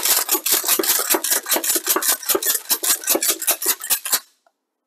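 Mossberg 590A1 12-gauge pump-action shotgun being racked rapidly, its slide clacking back and forth about eight to ten times a second as mixed mini shells and full-size shells feed from the magazine and eject, dry-cycled with the firing pin removed. The racking stops abruptly about four seconds in, the magazine run through without a hitch.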